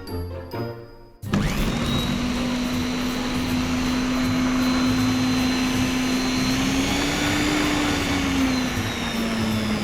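Electric blender switching on about a second in and running steadily as it purees apples, its motor pitch rising a little about seven seconds in and then settling back.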